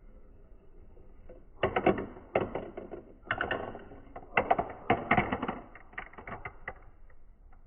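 Marbles clicking and rattling along a marble run track, in several bursts of quick clicks over about five seconds, the last few clicks sparser and fainter.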